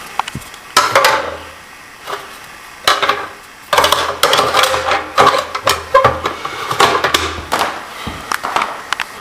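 Packaging and parts being handled and unpacked: irregular crinkling and rustling with sharp knocks and clicks.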